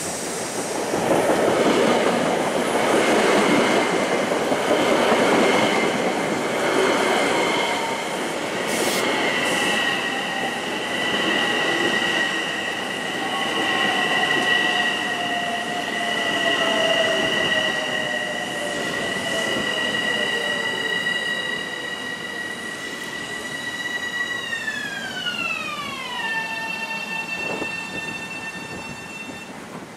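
Long Island Rail Road M7 electric multiple-unit train slowing to a stop at a platform. The wheels rumble on the rails at first, then a steady high whine is heard along with a lower tone that sinks slowly as the train slows. About 24 seconds in, the whine glides down in pitch and settles as the train comes to rest.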